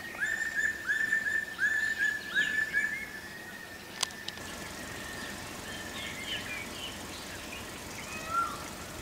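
Wild birds calling: a quick series of about six short whistled notes in the first three seconds, then quieter scattered chirps. There is a single sharp click about four seconds in.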